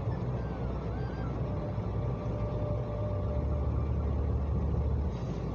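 Car in motion heard from inside the cabin: a steady low rumble of engine and tyre road noise.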